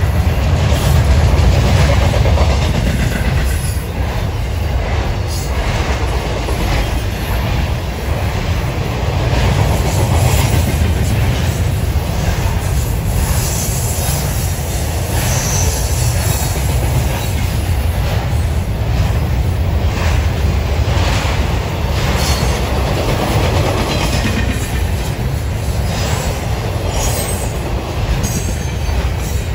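Double-stack intermodal freight train's well cars rolling past close by: a steady low rumble with scattered clicks and clanks from the wheels and car connections.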